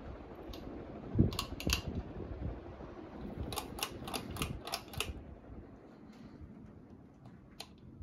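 Bahama 52-inch ceiling fan running with a low steady whoosh, under sharp clicks: a thump and two clicks about a second in, a quick run of about six clicks around four seconds in, and one more click near the end.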